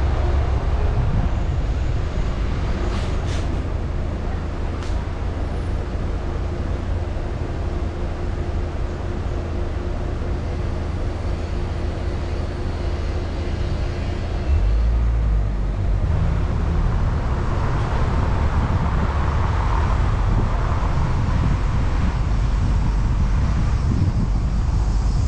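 Car driving through city streets: a steady low rumble of engine and road noise. It grows louder about fourteen seconds in, and a broader rushing noise joins it a couple of seconds later.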